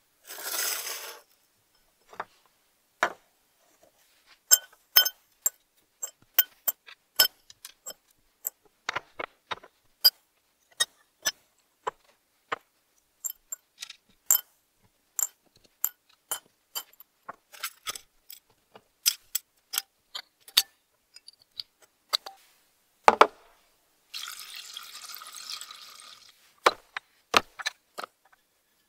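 Small metal screws, nuts and washers dropped one at a time into a stainless steel bowl and a glass tumbler, each landing with a short sharp clink, dozens of them in an uneven rhythm. A couple of seconds of steady hiss come about three-quarters of the way through.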